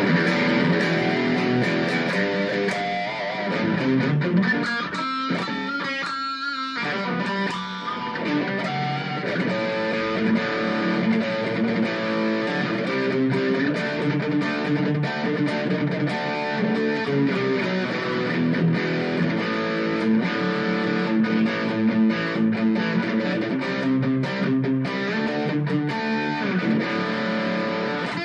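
Ibanez Gio electric guitar fitted with a Tokai pickup set, played on its bridge pickup through a distorted amp tone: sustained chords and single-note lines, with wavering bent notes a few seconds in.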